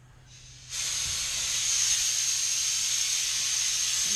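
Compressed-air blow gun sending out a steady blast of air with a high whistle in it, blowing dirt off an air compressor's motor. It starts faintly and opens to full blast just under a second in.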